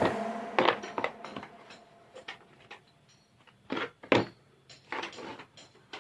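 A few irregular light clicks and knocks, like small hard objects being handled and set down.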